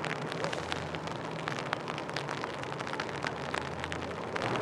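Steady outdoor background noise, densely scattered with small sharp ticks and crackles, over a faint low steady hum.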